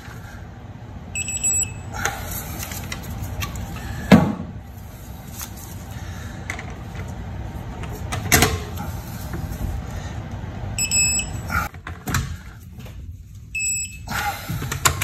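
Electronic torque wrench beeping as lug nuts are tightened to full torque. There are short high beeps, a pair about a second in and more near the end, with a few sharp knocks of the wrench on the nuts in between.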